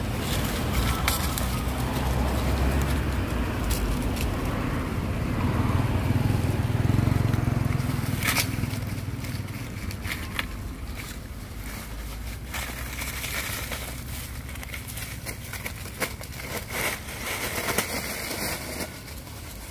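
Dry fallen leaves crackling and rustling as young macaques scuffle and chase through them, over a low rumble that swells in the first half and then eases off.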